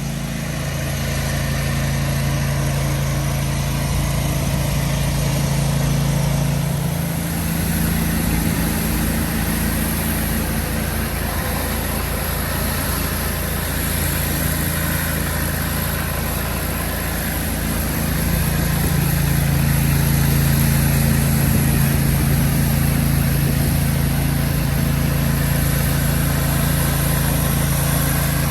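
Gas-engine pressure washer running steadily, its engine note shifting about seven seconds in and settling back near eighteen seconds in.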